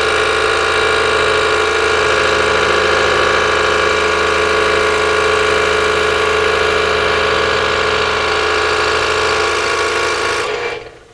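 Scroll saw running steadily as its blade cuts a straight line through a thin patterned wood piece, a constant pitched motor hum. Near the end the saw is switched off and the sound dies away within about half a second.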